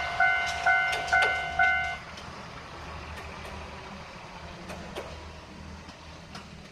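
Japanese railroad crossing's electronic warning bell ringing at about two strikes a second, then stopping about two seconds in as the train has cleared the crossing. A low steady rumble continues after it.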